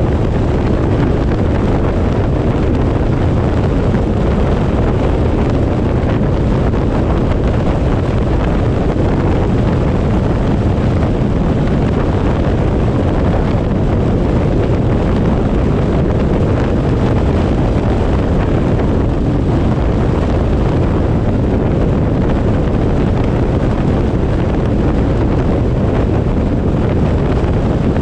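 Steady wind rushing over the microphone of a camera on a moving vehicle, a constant low rumble mixed with road noise.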